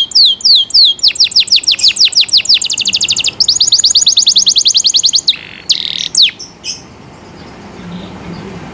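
Domestic canary singing: a run of high downward-sweeping notes, about three a second, that speeds up into a fast, even rolling trill, then a few harsher notes before the song stops about two-thirds of the way through.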